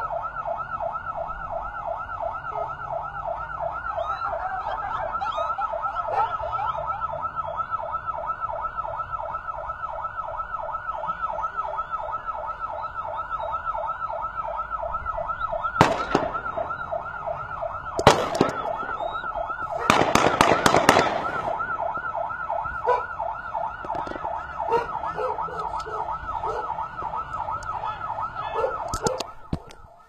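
Electronic siren sounding a fast up-and-down warble, about four cycles a second, steady until it stops just before the end. Sharp knocks about halfway through, and a quick cluster of them around two-thirds of the way.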